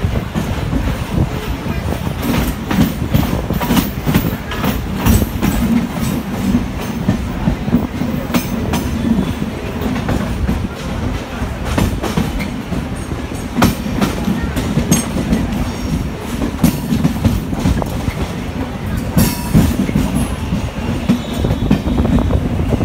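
Electric suburban local train running at speed, heard from the open coach doorway: a steady low rumble with irregular sharp wheel clacks as the wheels cross rail joints and points.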